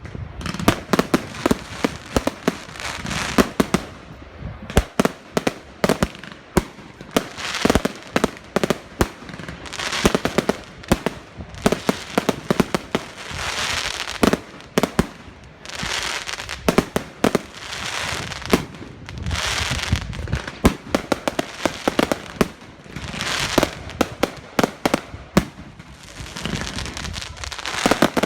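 Fireworks display: a dense run of sharp bangs and pops throughout, with a hissing swell returning every two to four seconds.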